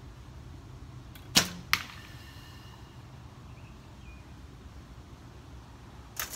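Recurve bow shot: a sharp snap as the string is released, and a second crack a fraction of a second later as the arrow hits the foam target. Near the end, a few light clicks as arrows in the hip quiver knock together.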